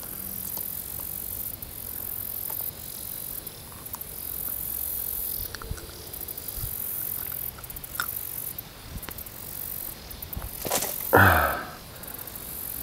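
Faint clicks from fingers and a fishing hook being worked out of a bullhead's mouth, over a high hiss that cuts in and out. A short louder sound comes near the end.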